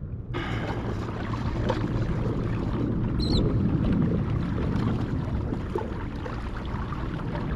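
Wind rushing over the microphone on an open kayak, with water noise; a brief high chirp about three seconds in.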